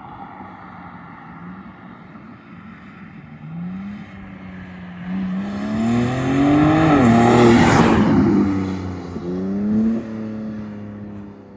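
BMW G80 M3's twin-turbo inline-six exhaust, through a single resonated midpipe with stock downpipes and muffler, idling and then revving up in steps to a loud peak about two-thirds of the way in before the revs drop. A short rise and fall follows before it settles back to a low idle.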